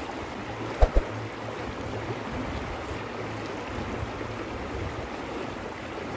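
Mountain river rushing steadily over rocks, with two soft thumps about a second in.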